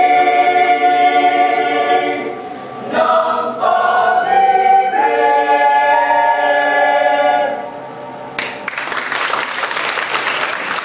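Mixed-voice glee club singing a cappella, closing the song on long held chords. The singing ends about three-quarters of the way through, and applause breaks out soon after.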